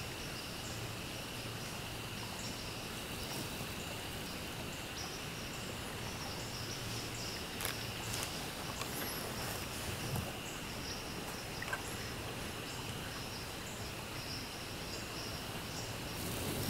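A steady, high-pitched chorus of calling insects in the woods, with a few faint snaps and rustles about halfway through.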